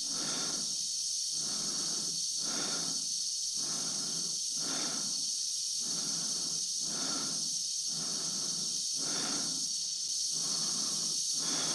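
Post-synchronised astronaut breathing inside a spacesuit helmet: slow, even breaths in and out, a full breath about every two seconds, over a steady high hiss.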